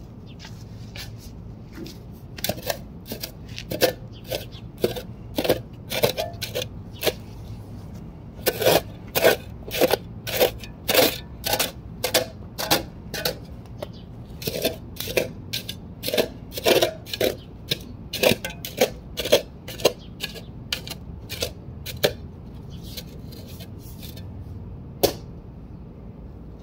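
Flat-bladed shovel chopping and scraping into loose, freshly tilled garden soil: a run of sharp clicks and scrapes, about two a second, loudest for a few seconds near the middle and thinning out near the end.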